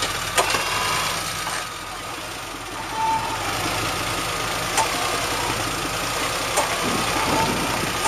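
Off-road vehicle's engine idling steadily, with a few sharp clicks over it.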